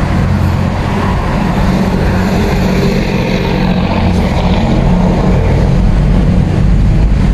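Car interior noise while driving: a steady low engine hum with road and tyre noise.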